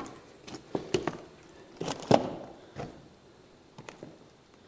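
Irregular sharp wooden knocks and cracks, the loudest about two seconds in. They are footsteps on the old debris-littered wooden floorboards of an abandoned hall.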